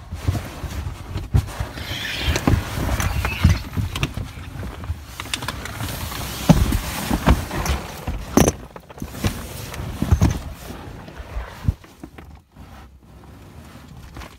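The inside of a large cardboard box as it is jostled, carried and tipped: irregular thumps and knocks with rustling of blankets and loose contents against the cardboard walls, dying down near the end.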